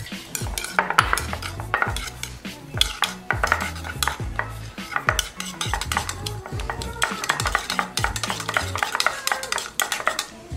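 Table knife stirring brown sugar into melted butter in a ceramic bowl: rapid, continuous clicks and scrapes of the metal blade against the bowl.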